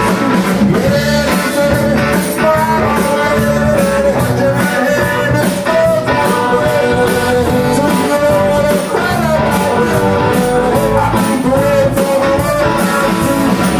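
A live rock band playing: a man singing into a microphone over electric guitar, bass guitar and drums, steady and loud.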